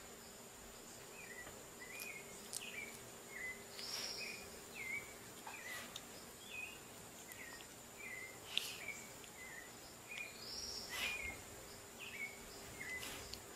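Faint chirping bird song: a phrase of short falling chirps, each time with one higher note, repeated about every six seconds over a steady thin high insect-like tone.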